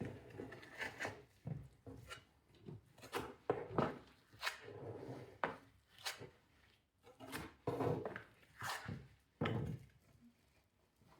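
Small steel plastering trowel scraping and pressing wet bonding-coat plaster into a chased channel in a wall, in a run of short, irregular strokes with small knocks.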